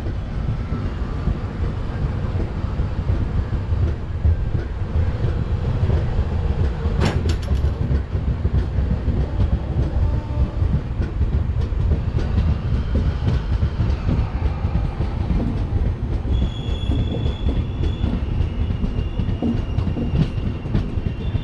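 An LHB sleeper train pulling out of a station, heard from an open coach door: the wheels roll over the track with a steady low rumble. There is one sharp click about seven seconds in, and a thin high whine joins from about sixteen seconds.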